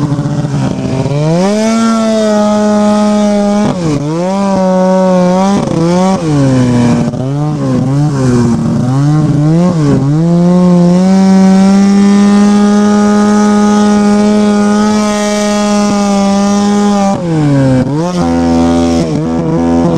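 Ski-Doo snowmobile engine revving up and down again and again as the throttle is worked, then held at a steady high pitch for several seconds before dropping to a lower steady note near the end.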